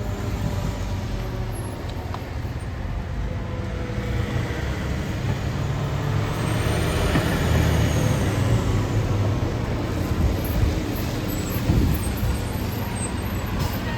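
Heavy fire truck's diesel engine running with a low, steady rumble that swells in the middle, a faint high whine rising and falling over it.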